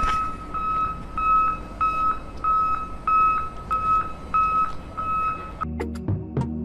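An electronic beeper sounding a single-pitched beep over and over, evenly spaced at about one and a half beeps a second, over a low background noise. The beeping stops near the end as music starts.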